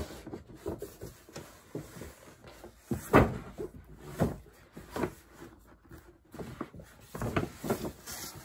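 A paper shopping bag and a stiff cardboard gift box being handled and opened, making rustling and scraping with several dull knocks. The loudest knock comes about three seconds in.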